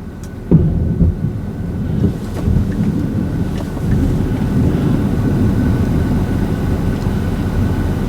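Low, steady rumble of a vehicle heard from inside its cabin, mixed with wind noise, with one sharp knock about half a second in.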